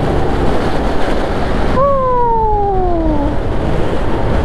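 Steady rushing wind and road noise from travelling in a moving vehicle. About two seconds in, one tone slides downward in pitch for about a second and a half.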